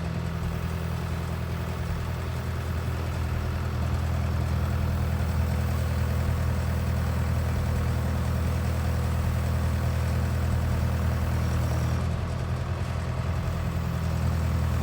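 Heavy equipment engine running steadily with a low, even drone, easing off slightly about twelve seconds in.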